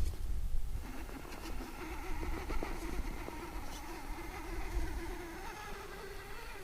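Whine of an Axial SCX10 II Deadbolt RC crawler's stock 35-turn brushed motor and gear train as it drives, starting about a second in, its pitch wavering with the throttle. Low rumbling noise runs underneath.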